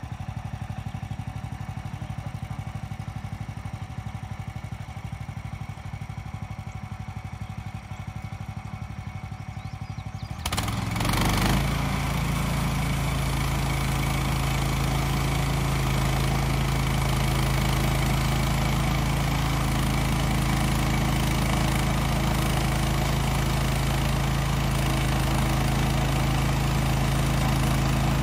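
Woodland Mills HM126 portable bandsaw mill's gasoline engine idling with a steady pulsing, then about ten seconds in throttled up sharply to full speed and running loud and steady, spinning the band blade.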